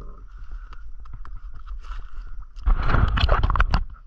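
Handling noise on a fishing kayak: scattered clicks and knocks of gear being moved, then a loud second of rapid clattering and rubbing about three seconds in.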